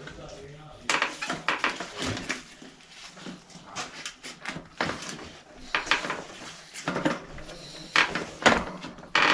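Irregular metallic clicks and clinks as a bicycle front wheel is fitted back into the fork, the axle and fittings knocking against the dropouts.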